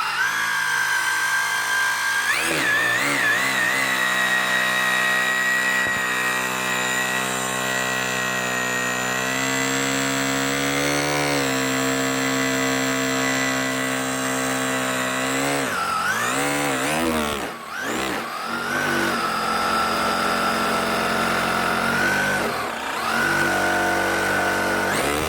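Radio-controlled car's motor running hard with a steady whine, its pitch dipping and climbing back several times in the second half as the throttle is let off and reapplied.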